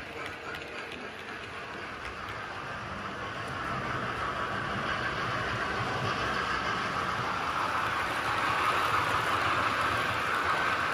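OO gauge model trains running on the track: a steady whir of wheels on rail and motors, growing louder from a few seconds in.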